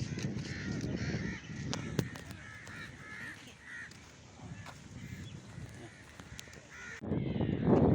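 Crows cawing repeatedly over a steady low rumble. Near the end it cuts suddenly to a louder rumble.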